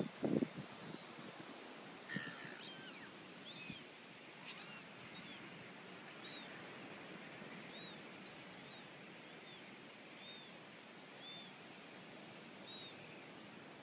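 Gulls calling over a steady outdoor hiss: a burst of harsh, gliding calls about two seconds in, then short high calls repeating roughly once a second. A brief low rumble at the very start is the loudest moment.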